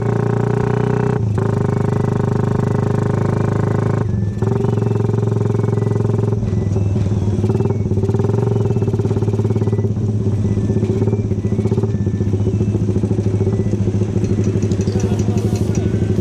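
Suzuki Raider 150's single-cylinder four-stroke engine running as the motorcycle is ridden, with a brief dip in sound about four seconds in. Near the end it settles into slower, separate idle pulses as the bike pulls up.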